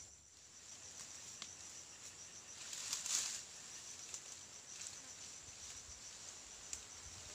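Insects droning steadily at a high pitch, swelling briefly about three seconds in.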